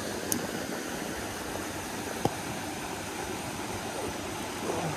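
A small mountain stream runs steadily over rocks and a low cascade. A short click comes just after the start, and a sharper, louder click about two seconds in.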